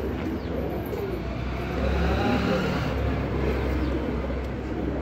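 Pigeons cooing over a low rumble that grows louder for a second or two about two seconds in.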